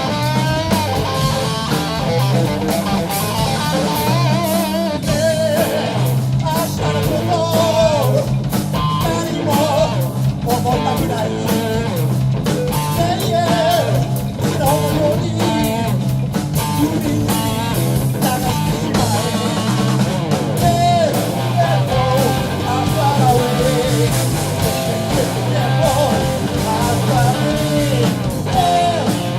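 A rock band playing live: electric guitar with bass and drum kit, a wavering melodic line running over a steady pulsing low end.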